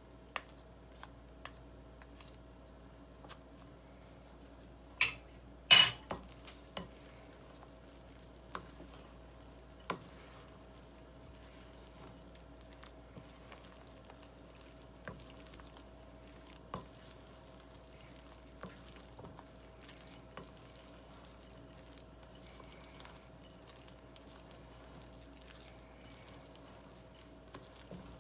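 A wooden spoon stirring and scraping a stiff, sticky bread dough in a glass bowl, with small scattered taps. Two sharp knocks, the loudest sounds, come about five and six seconds in.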